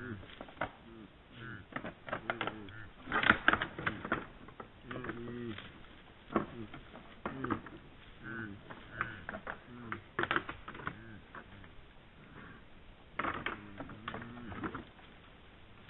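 Red deer stags sparring: antlers clacking and rattling together in irregular bursts, loudest a little over 3 s in and around 10 and 13 s in, with short low calls that rise and fall in pitch between the clashes.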